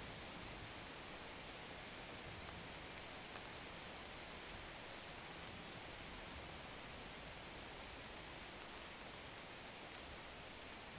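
Carbonated sharbat fizzing in a tall glass: a steady soft hiss with a few faint scattered pops of bursting bubbles.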